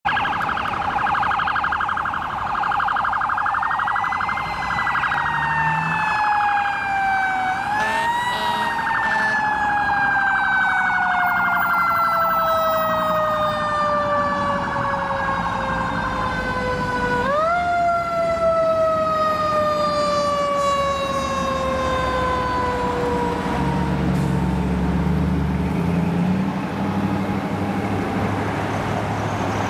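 Fire engine sirens. A fast warbling siren at first, then a siren that rises sharply twice and slides slowly down in pitch after each rise. Heavy engine rumble near the end as the trucks pass.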